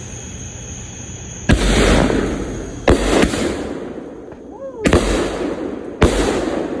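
Keystone Hang Time 200 g 12-shot fan cake firing. Five sharp shots go off starting about a second and a half in, two of them close together, and each leaves a long fading rumble.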